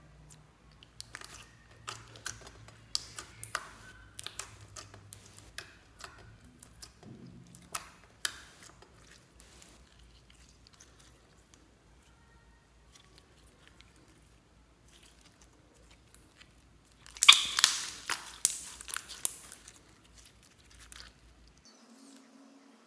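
Clear slime with star-shaped confetti being pressed, stretched and squeezed by hand, giving sharp sticky pops and crackles. Late on there is a dense run of loud crackling lasting about two seconds.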